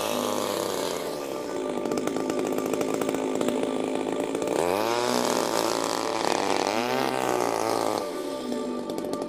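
Two-stroke chainsaw running at high revs, then dropping and revving back up twice, about five and seven seconds in, and easing off again near the end, as it does while carving wood.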